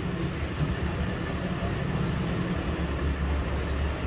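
A vehicle engine running with a steady low rumble that grows a little stronger about three seconds in.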